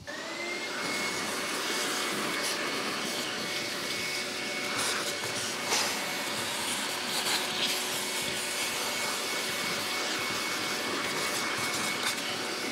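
Workshop dust extractor starting up: its motor whine rises and settles within the first second, then it runs steadily with a rushing air sound as it draws through a long corrugated hose. A few light knocks come as the hose fitting is handled at a track saw's dust port, the loudest about six seconds in.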